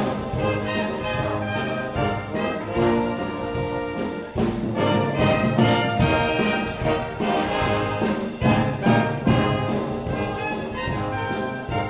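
Brass band playing a tune, trombones and trumpets over a steady drum beat.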